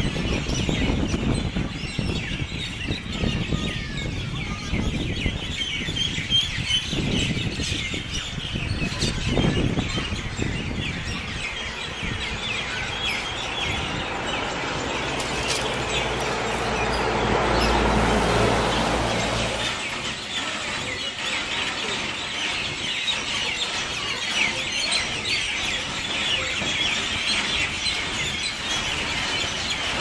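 A flock of small swirling birds chirping constantly, many high calls overlapping. A low rushing noise runs underneath and swells and fades around the middle, like a vehicle passing on the road.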